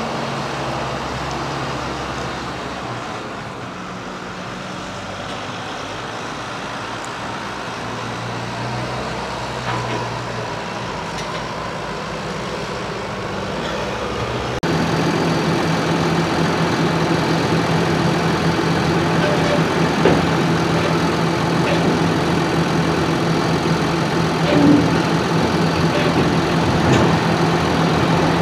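Farm tractor engine running steadily while compacting grass silage on the clamp. About halfway through the sound changes abruptly and becomes louder, a steadier hum, with a few faint knocks.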